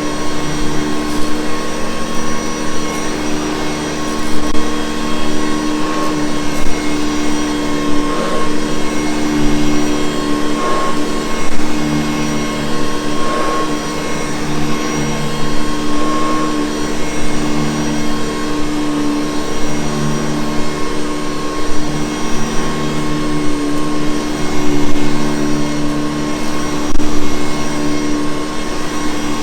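Hoover Convertible U4387 upright vacuum cleaner running steadily, its motor holding a constant whine with no change in speed.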